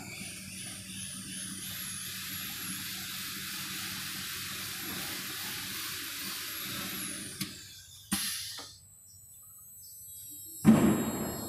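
CNC oscillating knife cutting machine running, a steady motor hiss and hum with a high whine that wavers up and down, stopping sharply after about seven seconds. A short burst of noise follows about a second later, and a loud burst of noise comes near the end.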